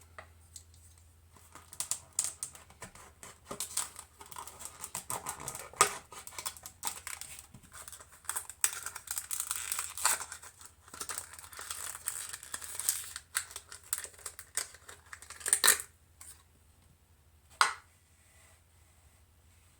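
Small parts being handled on a workbench: a long run of rustling, crinkling and light clicks, then two single sharp clicks near the end.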